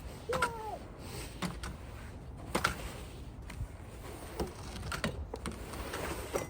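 Scattered short scrapes and knocks of snow being brushed and pushed off a car, one every second or so, over a low wind rumble on the microphone. A short high cry with a falling pitch comes about half a second in.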